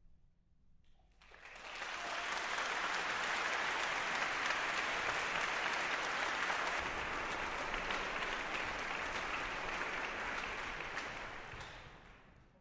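Audience applauding. It starts about a second in, holds steady, and fades out near the end.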